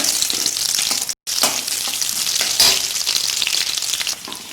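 Crushed small onions sizzling as they fry in hot sesame oil in a kadai, with a few stirring scrapes; the sound cuts out for an instant about a second in.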